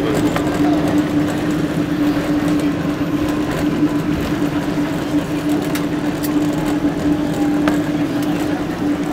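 Jet airliner cabin noise during the landing rollout: a steady drone with a constant low hum and rumble as the plane slows on the runway with its spoilers raised.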